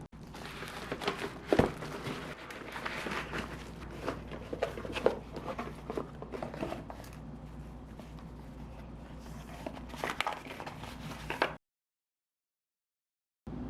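A parcel being handled and unboxed: irregular rustling and scraping of packaging with a few sharp knocks. The sound then cuts off abruptly into dead silence for about two seconds near the end.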